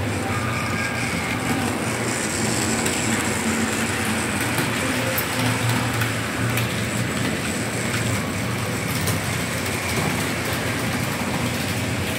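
Model trains running around a layout's track: a steady rumble and hum of motors and wheels on rail, with occasional faint clicks.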